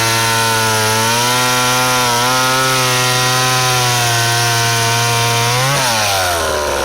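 McCulloch Mac 10-10 two-stroke chainsaw running at full throttle through a cut in wood, its pitch dipping slightly as the chain loads. Near the end it revs up briefly as it comes free, then drops back to idle.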